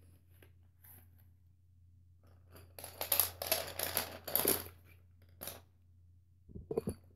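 Cardboard colored-pencil box being handled: about two seconds of scraping and rustling as the wooden pencils slide out of the box, a short rustle after, then a few dull knocks near the end.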